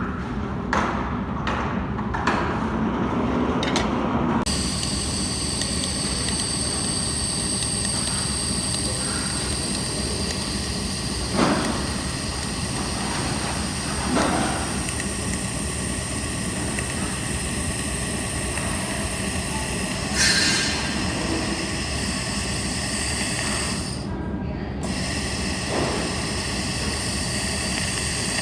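Handheld laser welding machine running. A steady hiss with several high, fixed whining tones starts after a few sharp clicks about four seconds in. The whine cuts out briefly near the end and resumes.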